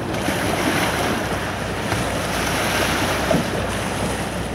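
Small boat under way on a river: water rushing and splashing against the hull with a low steady motor hum, and wind buffeting the microphone.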